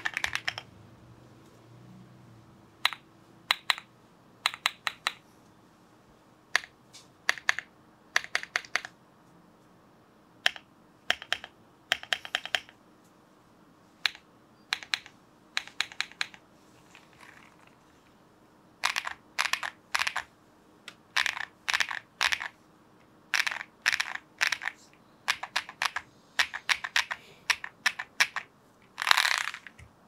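Stabilizer test on an Akko SPR67 mechanical keyboard with KTT Macaron Yellow linear switches. The large stabilized keys, such as shift, are pressed and released one at a time, each giving a short clack and its return. A moment of fast typing comes at the very start, and the presses come more often in the second half, with one longer rattle near the end.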